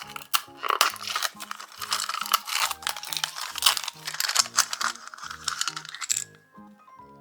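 Small hard toy pieces clicking and rattling as they are handled, over background music with a plodding melody. The clatter stops about six seconds in.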